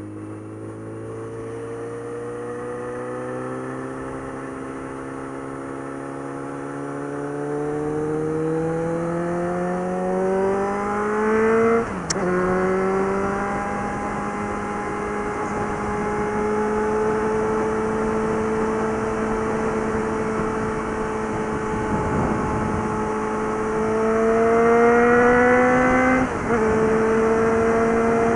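Suzuki GSX650F's inline-four engine and exhaust pulling hard, climbing steadily in pitch for about twelve seconds before an upshift drops the revs. It holds a steady cruise, pulls up again, and shifts once more near the end.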